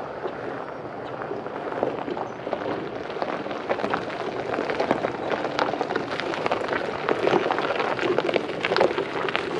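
Golf cart tyres crunching over loose gravel as the cart rolls toward the camera, a dense crackle of small pops that grows louder as it comes close.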